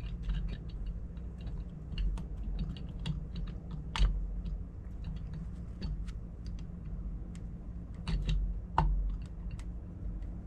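Irregular light clicks and taps of small metal engine parts being handled and fitted by hand, during work on a dirt-bike piston and wrist pin, with two sharper knocks, about four seconds in and near the end, over a steady low hum.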